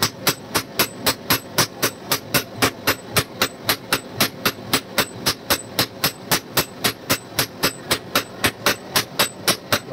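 Hand hammer forging a red-hot steel knife blank on an anvil: sharp metal-on-metal blows in a steady rhythm of about four a second.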